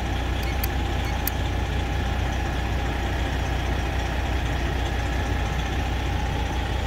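Freightliner Coronado glider semi truck's diesel engine idling steadily.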